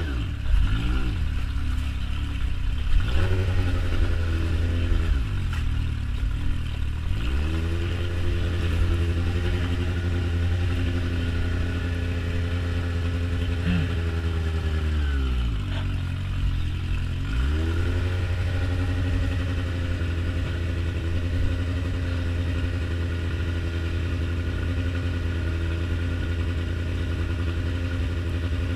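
Yamaha motorcycle engine running at low revs while the bike creeps forward, its pitch sagging and picking back up several times. For roughly the last ten seconds it idles steadily.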